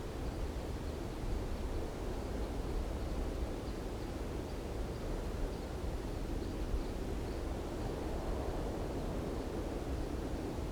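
Light wind blowing steadily, a low even rush with no gusts standing out.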